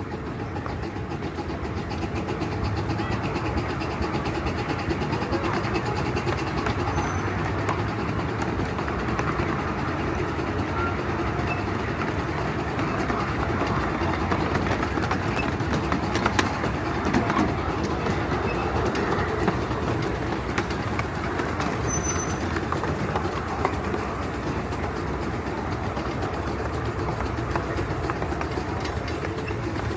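7¼-inch gauge ride-on steam train running slowly, heard from aboard: a steady rumble of wheels on the rails with the locomotive working. A few sharp clicks come about halfway through.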